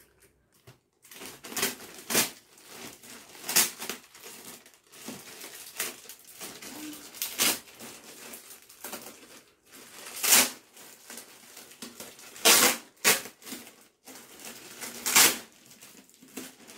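Clear plastic polybag packaging around a new backpack crinkling and rustling as it is handled and pulled open, irregular, with several louder crackles.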